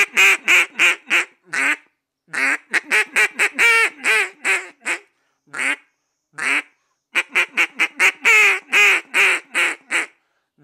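A mallard duck call, a Rick Hahne Deadly Double, blown in short quacks: greeting-call sequences mixed with single quacks. The notes come in several runs that speed up and slow down, with a few lone quacks in the pauses, to sound like a group of ducks calling.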